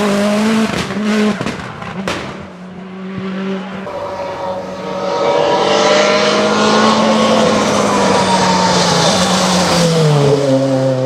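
Racing Mitsubishi Lancer prototype's engine pulling hard at high revs. It fades with a sharp crack about two seconds in, then builds again to a loud, steady note. Near the end its pitch drops sharply as the car goes by.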